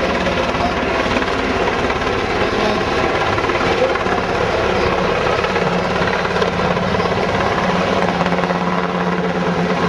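Sikorsky HH-60 Pave Hawk helicopter flying low and close, its rotor chop and twin turbine engines loud and steady, with a hum that grows stronger about six seconds in.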